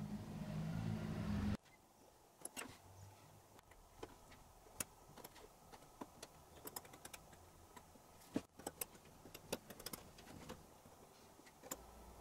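Light, scattered clicks of steel tweezers and tiny wooden pegs tapping against a small carved wooden part. Before them, a rising mechanical hum in the opening second and a half cuts off abruptly.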